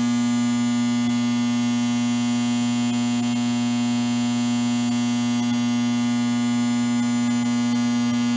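Steady electrical hum and buzz: one strong low tone with many overtones, unchanging throughout.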